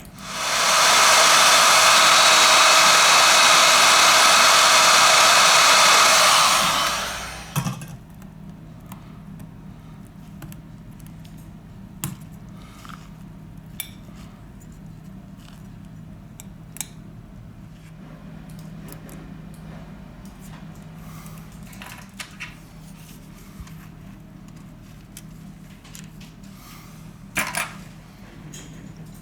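A hot-air blower runs steadily for about seven seconds, then winds down and stops. Afterwards come scattered small clicks and taps.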